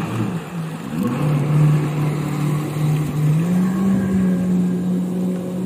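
Yamaha jet ski engine revving unevenly as the watercraft pulls away, then running steadily, stepping up in pitch about three and a half seconds in as it picks up speed.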